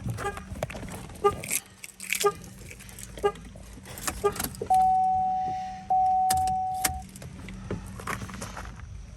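Car warning chimes: a short chime repeating a little faster than once a second, then two longer ringing tones that fade, around 5 and 6 seconds in. Keys jangle and door or lock clicks sound throughout.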